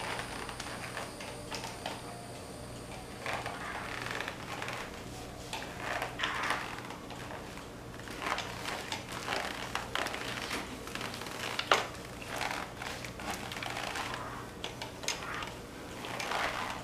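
Wet string mop swishing and scrubbing over a tile floor, with scattered irregular clicks and knocks and one sharper knock about two-thirds through.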